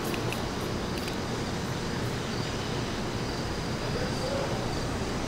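Low, steady rumble of an approaching Metro-North Kawasaki M8 electric train, still some distance off.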